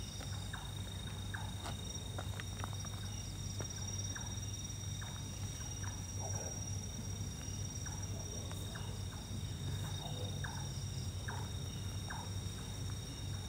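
Footsteps crunching on dirt and gravel at an irregular walking pace, over a steady high trilling of night insects.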